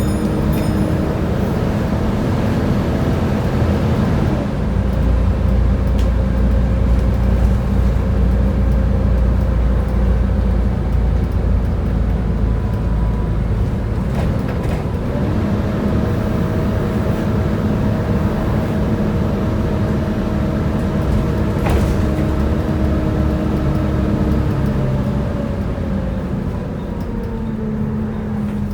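Volvo B7TL bus's six-cylinder diesel engine and ZF automatic gearbox running under way, with the hydraulic cooling fan roaring. The whining tones drop about four seconds in, rise again about halfway through and fall away near the end, as the bus changes speed.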